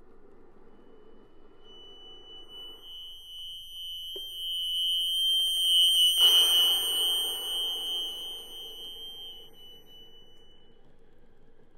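Chromatic button accordion sustaining one piercing high note that swells up over a few seconds and then fades away as the bellows are drawn wide, over a breathy hiss of air. A couple of sharp clicks come near the middle, the second at the loudest point.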